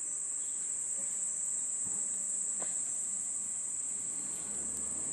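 Insects calling outdoors in a steady, unbroken high-pitched drone.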